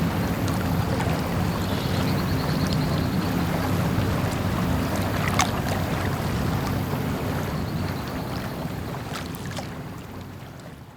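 Small-harbour ambience: a boat's engine running low and steady, with scattered clicks and one louder knock about five seconds in. It all fades out over the last few seconds.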